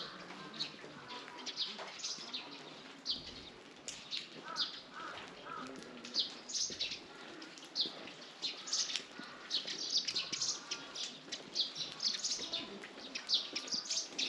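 Small birds chirping: many short, sharp high notes that come thicker and faster from about halfway through.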